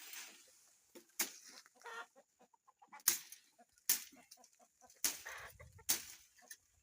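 About six sharp chops of a blade cutting through low shrub branches, with leafy swishes after each, while hens cluck.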